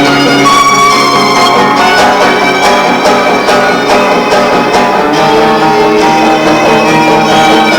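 Violin and guitar playing free improvised music together. Held violin notes sound over repeated plucked or strummed guitar chords.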